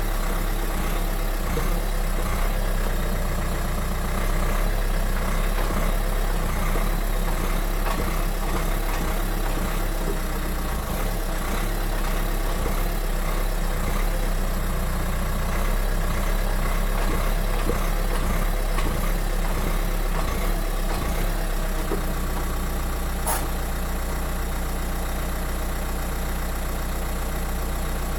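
Dacia Duster 4x4 (2018, 115 CV) running, with a steady engine and drivetrain noise. This is the transmission noise the video sets out to show. The low rumble changes character about 22 seconds in, and a single sharp click comes about a second later.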